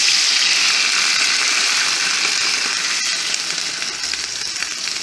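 White wine poured into a hot frying pan of browned chicken pieces, the pan sizzling hard as the liquid hits, with the sizzle easing off gradually toward the end.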